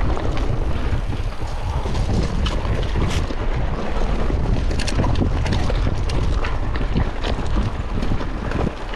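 Wind buffeting the microphone while a mountain bike rides a dirt trail, a steady rumbling rush with scattered clicks and knocks through it.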